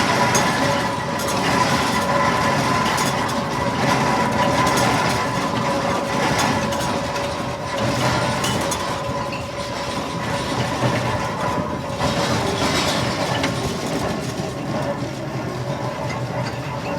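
Fowler BB1 steam ploughing engine on the move, a steady mechanical rumble and clatter that eases off slightly towards the end.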